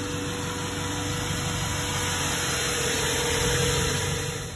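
Turbocharged Toyota Camry's engine idling steadily, running a little hot after a hard run.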